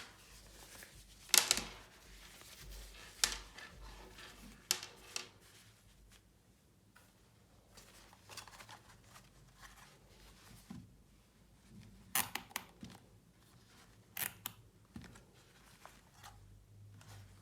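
Headphones and their packaging being handled: scattered sharp clicks and short rustles, the loudest about a second and a half in.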